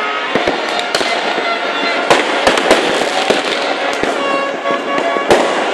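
New Year's Eve fireworks and firecrackers going off: many sharp bangs and crackles in quick irregular succession over a continuous dense din, with some steady held tones mixed in.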